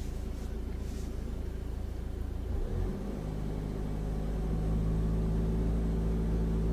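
Engine of a manual-gearbox Peugeot car, heard from inside the cabin while driving. About two and a half seconds in, the engine note briefly breaks at a gear change, then runs steadier and louder as the car picks up speed.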